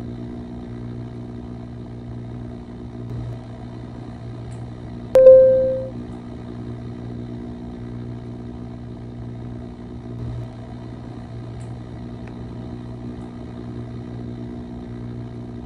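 Steady low electrical hum of a submersible's cabin, with a sharp click and a short electronic beep that fades away about five seconds in.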